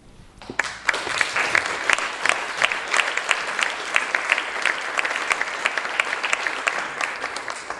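Audience applauding, rising quickly about half a second in and tapering off near the end.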